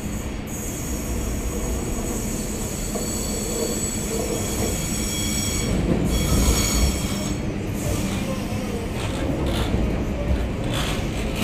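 Z 6400 suburban electric train rolling slowly past, its wheels squealing in several high-pitched tones over a low rumble for the first seven seconds or so, then a few clicks of wheels over the rails later on.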